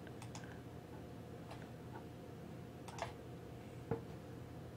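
About half a dozen faint computer mouse clicks, scattered irregularly, the loudest nearly four seconds in, over a steady low hum.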